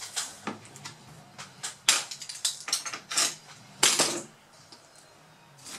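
A quick run of sharp clicks and light knocks: hard plastic and metal parts of a laptop's screen assembly being handled. The loudest come about two and four seconds in, then it goes quiet.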